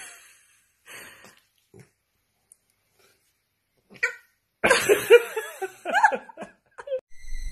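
Puppy imitating an "oww" with short howling yowls: a few faint sounds at first, then one short cry and a louder run of wavering howls over the last few seconds.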